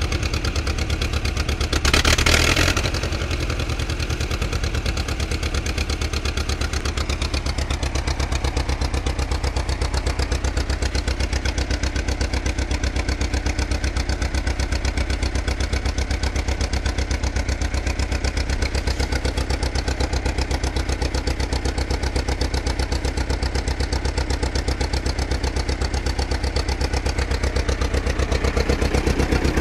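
David Brown VIG1 aircraft tug's engine running steadily at idle with an even firing beat, after a brief louder burst about two seconds in. It gets slightly louder near the end.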